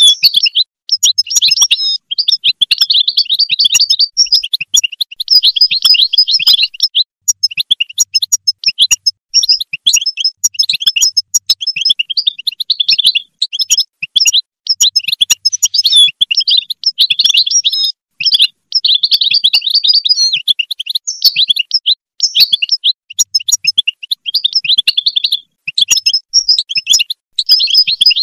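European goldfinch singing: long runs of rapid twittering notes in phrases of one to three seconds, broken by short pauses.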